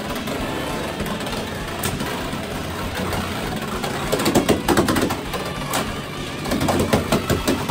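Viper Tail and Knight Lance Beyblade X spinning tops whirring steadily on a plastic stadium floor. About four seconds in, and again near the end, come spells of rapid clicking as the tops clash against each other.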